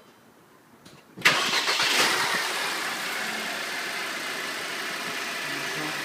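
Mercedes C250 engine starting about a second in, flaring briefly and then settling into a steady idle, breathing through a K&N aftermarket air filter in place of the stock one.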